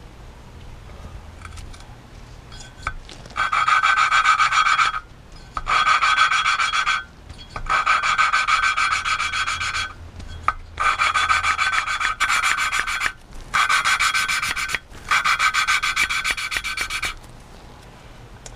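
Exhaust valve being hand-lapped into its seat in a Sea-Doo 4-TEC 1503 cylinder head: the valve face grinds against the seat through abrasive lapping paste as the suction-cup lapping stick is spun back and forth. This makes a loud gritty rasp in about seven spells of a second or two each, starting about three seconds in. The lapping is cutting a matte ring on the valve and seat so they mate and seal.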